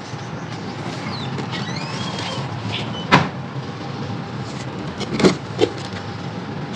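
Three sharp crunches from pieces of dry sand-clay being crumbled, over a steady background hiss with a few bird chirps.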